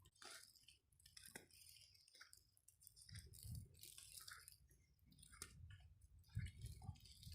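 Near silence with faint scattered clicks and crackles, and a faint low rumble from about three seconds in.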